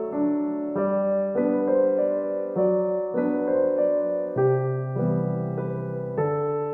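Background music: a gentle piano melody with chords, the notes changing about every half second.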